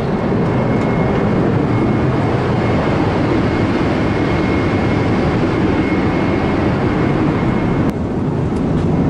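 Steady in-cabin noise of a Boeing 777-300ER in cruise: the rush of airflow and its twin GE90 engines. A faint, steady high whine sits above it and cuts off near the end.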